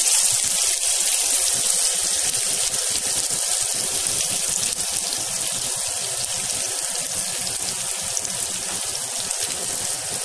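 Hot oil sizzling in a frying pan as chopped onions and green chillies fry: a steady high hiss with fine crackling that eases slightly.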